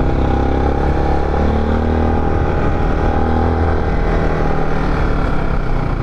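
Motorcycle engine running at a steady pitch while riding.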